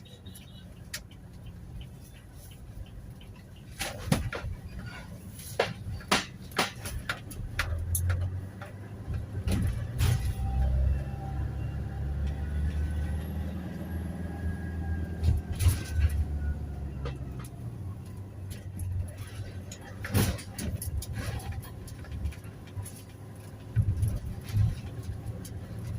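Toyota Hiace Commuter van driving, heard from the driver's seat: a low engine and road drone that swells louder for several seconds in the middle, with frequent sharp knocks and rattles.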